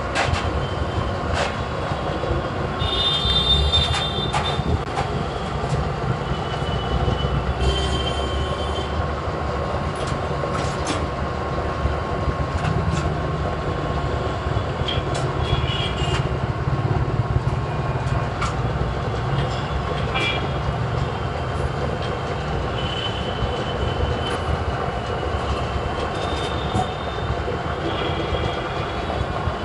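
Heavy machinery running steadily, with intermittent high-pitched metallic squeals and scattered sharp clicks.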